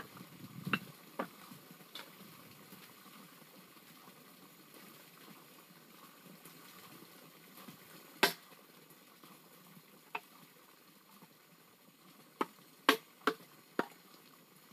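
Scattered sharp knocks of a wooden stick striking a bamboo pole: a few light taps at first, one loud knock about eight seconds in, and a quick run of four knocks near the end, with a faint steady hiss between.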